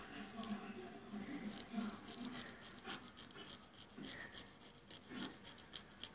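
Emery board rasping across a cat's claws in short, quick strokes, a few a second, starting about a second and a half in.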